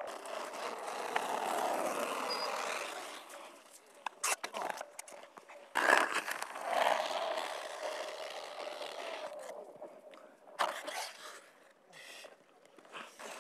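Ice-skate blades scraping and gliding on clear lake ice, strongest in the first few seconds and then fading, with a few sharp knocks along the way.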